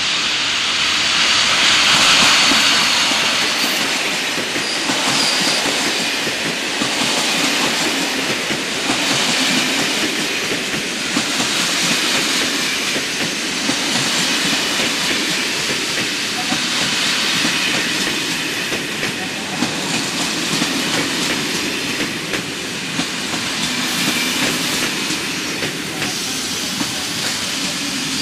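SNCF BB 9200 class electric locomotive hauling a train of passenger coaches past, with the steady rumble and clatter of wheels over rail joints and points. It is loudest about two seconds in as the locomotive goes by, and the wheels give brief faint high squeals now and then.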